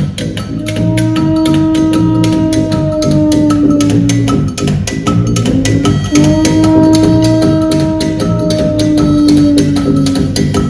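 Live band music: a trumpet holds two long notes, each sagging slightly in pitch at its end, over a fast, steady percussion beat.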